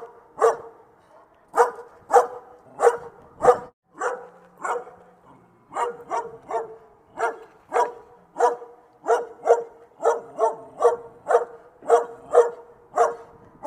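Dog barking over and over in a steady run of sharp barks. The barks thin out briefly about four seconds in, then go on at about two a second.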